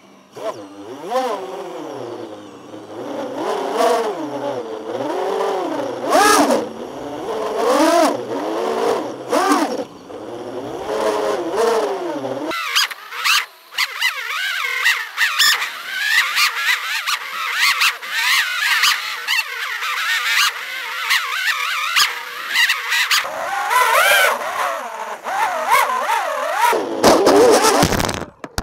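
FPV quadcopter's brushless motors and propellers whining, heard from the camera mounted on the quad, the pitch sweeping up and down with the throttle. About halfway through the deeper part of the sound drops away, leaving a higher, thinner whine.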